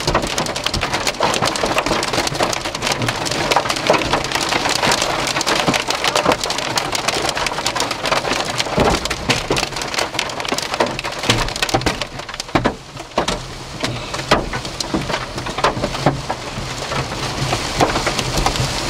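Heavy rain and hail hitting a truck, heard from inside the cab: a dense, steady drumming with many sharp knocks of hailstones striking the roof and glass. It dips briefly about twelve seconds in.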